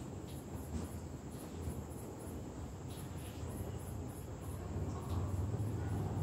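Crickets chirping: a high pulse repeating evenly about three times a second, with a steady high tone beneath. A low rumble grows louder near the end.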